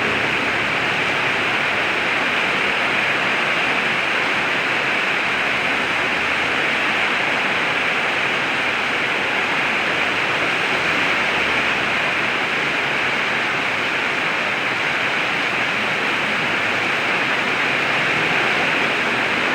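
Heavy rain pouring down, a steady hiss that holds level throughout.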